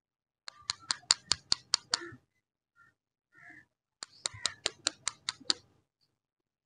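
Two quick runs of sharp clicks, about five a second, the second starting about four seconds in, as stick lollipops are handled and tapped down.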